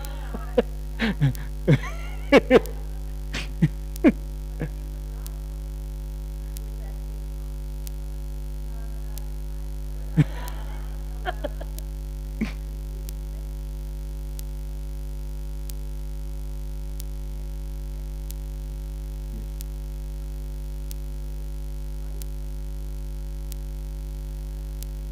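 Steady electrical mains hum, unchanging throughout, with a few brief faint sounds in the first few seconds and a short rustle-like noise about ten seconds in.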